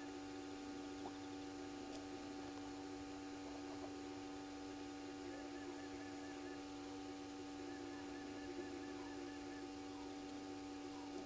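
Night ambience at a bush waterhole: a steady low hum throughout, with faint rapid chirping trills that start and stop every few seconds and soft short chirps repeating about twice a second in the later part.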